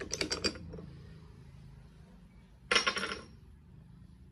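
Steel gear and synchro-hub parts of a BMW gearbox clinking against each other as they are worked apart by hand. A quick run of clinks comes in the first half-second, and a louder cluster of clinks about three seconds in.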